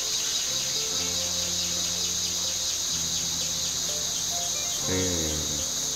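Steady, high-pitched chorus of forest insects, with low steady tones beneath it and a brief pitched sound that bends about five seconds in.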